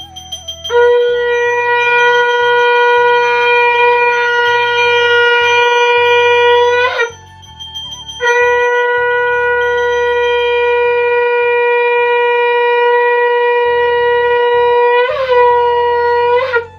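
Conch shell blown in two long, steady blasts with a short breath between them, each blast ending in a brief upward break in pitch.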